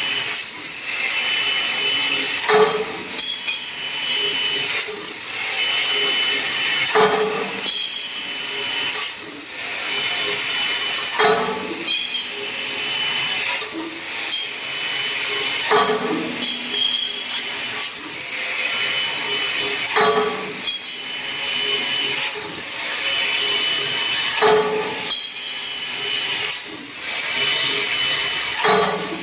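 A 3000 W laser tube-cutting machine at work: a steady high hiss with short clicks and brief tones in a cycle that repeats about every four and a half seconds.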